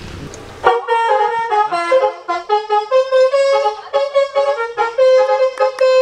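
Basuri telolet multi-tone horn playing a brassy tune, a quick run of held notes that starts about a second in.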